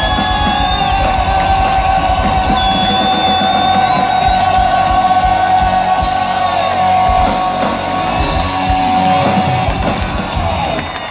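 Rock band playing live through a large outdoor PA, holding one long final chord with guitar, drums and yells before it dies away near the end.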